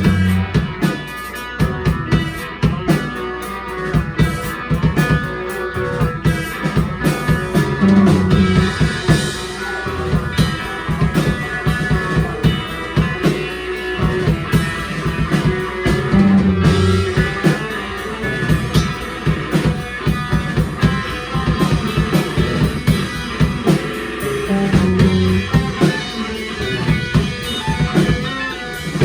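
Live rock band playing: guitar over a steady drum-kit beat, with a low riff that comes round about every eight seconds.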